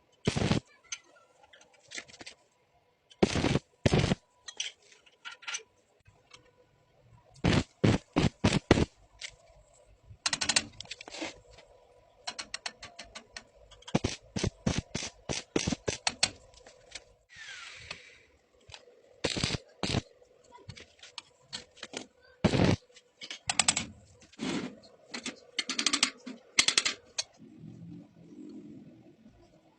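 Metalworking noise: sharp clicks and knocks in short, irregular clusters, several strokes at a time, with quiet gaps between them.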